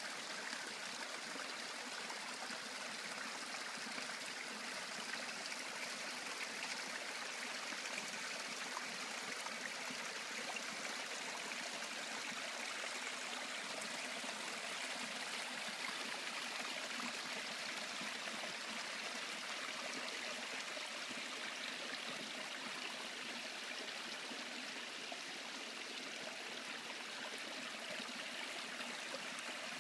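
A very small forest brook trickling over and between stones: a steady sound of running water that keeps an even level.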